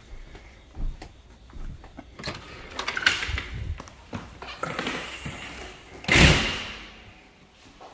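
A house's storm door and front door being opened and passed through, with rattling and knocks, then a door banging shut about six seconds in, the loudest sound.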